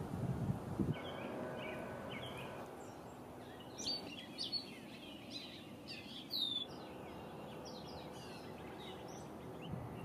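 Small songbirds chirping and calling: many short, high chirps and quick down-slurred whistles, scattered and overlapping, with a few louder notes near the middle.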